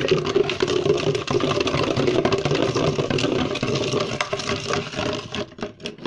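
Small portable clothes spin dryer spinning, its motor running with a steady hum and a rattly whir; the sound dies down near the end.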